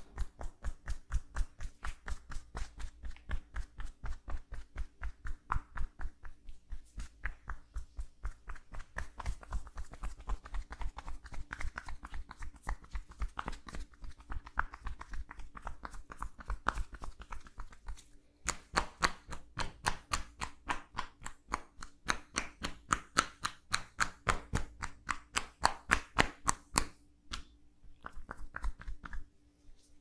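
Hands striking rhythmically on a person's back through a shirt in percussion massage (tapotement), several quick thuds a second in an even rhythm. The strikes pause briefly about two-thirds of the way through and stop just before the end.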